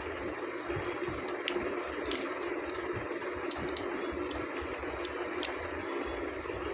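Light, scattered clicks and taps of small objects and packaging being handled, over a steady background hum.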